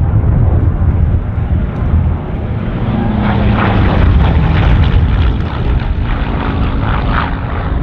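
Piston-engined propeller aircraft in flight overhead: a steady engine drone that turns harsher and more rasping from about three seconds in, then eases near the end.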